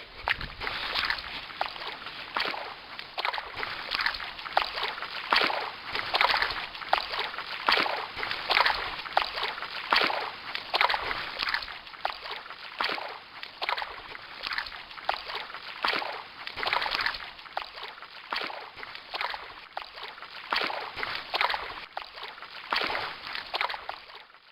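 Water sloshing and splashing in uneven, repeated splashes, roughly one a second.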